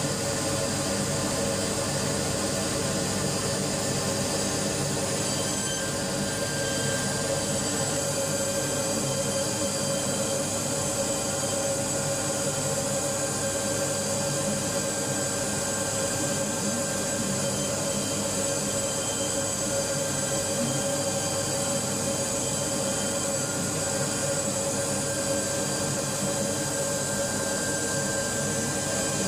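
CNC milling machine spindle cutting an insole blank, running steadily with its dust extraction: a constant whine of several steady tones over a rushing noise, with no let-up.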